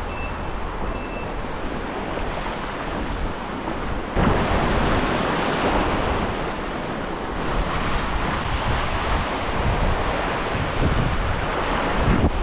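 Ocean surf washing in, with wind buffeting the microphone; the rush gets louder about four seconds in.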